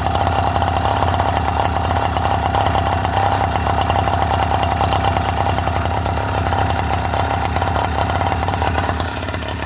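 Small motorized-bicycle engine running steadily with a dense, even firing rhythm and a steady whine. It eases off slightly near the end. The rider judges it to be running good.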